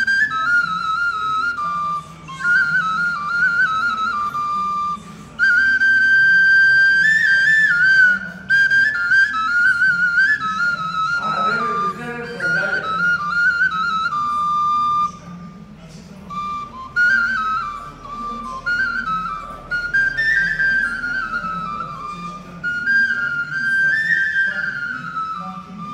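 Turkish kaval (shepherd's end-blown flute) playing a lively folk melody, in phrases of quick ornamented runs with brief pauses for breath.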